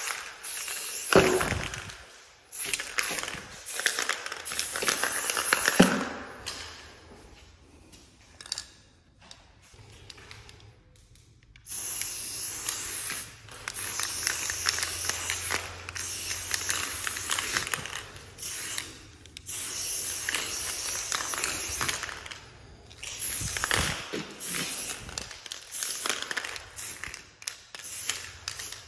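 Martha Stewart aerosol spray paint can hissing in bursts of a few seconds each as lines are sprayed onto a wall, with short breaks between strokes and a longer pause about a third of the way through.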